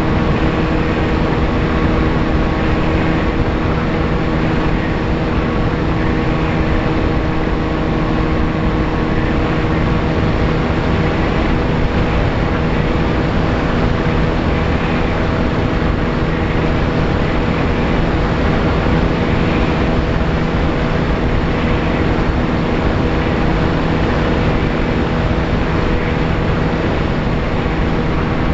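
Motor and propeller of a VAS Chimera FPV plane running at steady throttle in flight, a constant droning hum over loud wind rush, as picked up by the camera on board.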